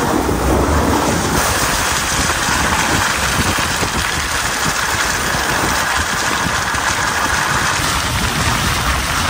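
Ram ProMaster 2500 van's tyres rolling over slushy snow and gravel, heard close to the front wheel: a steady, loud rush of tyre noise and crackling grit, with a low engine hum beneath.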